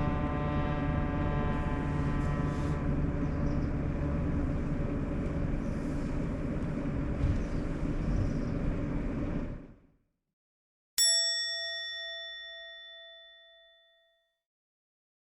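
Sharp AY-J40S-W air conditioner making its abnormal noise: a steady whine of many tones together over a low rumble, the fault that repairs to its frequency problem have not cured; it fades out about two-thirds of the way through. Then a single bell-like ding rings and slowly dies away.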